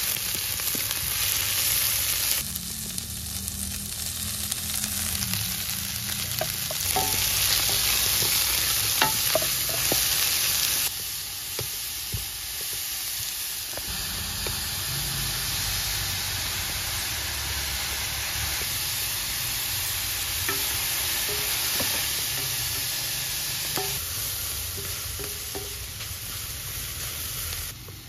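Shredded vegetables sizzling in hot oil in a steel pan while a wooden spoon stirs them, with occasional scrapes and taps of the spoon against the pan. The sizzle is steady and loud, its level shifting abruptly a few times.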